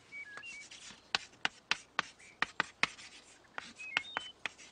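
A series of sharp, irregular clicks or taps, about a dozen, with a few brief high chirps near the start and again near the end.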